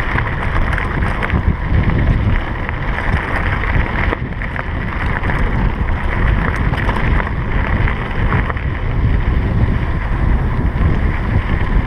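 Wind buffeting a GoPro Hero 3's microphone as a mountain bike descends a gravel road at speed, its tyres rumbling over the loose stones, with scattered small clicks and rattles.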